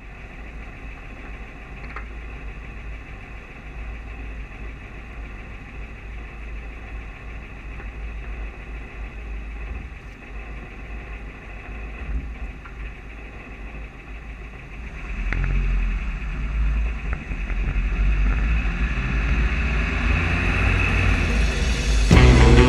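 Outdoor wind rumble and handling noise on a small camera's microphone, a steady low rumble with faint hiss. About two-thirds of the way through it grows louder and brighter as the camera starts moving down the road; music comes in near the end.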